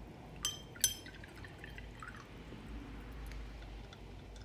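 A paintbrush knocked twice against a glass water jar while being rinsed: two short ringing clinks less than half a second apart, then faint water sounds.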